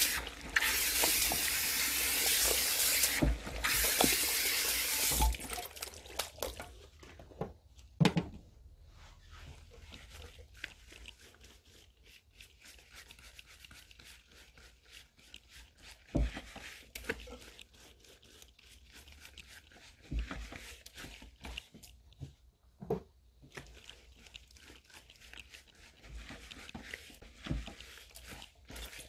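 Salon shampoo-basin hand sprayer hissing as water runs onto wet hair for about five seconds, with a brief break, then quieter wet squishing of hands working the hair in the basin, with a few soft knocks.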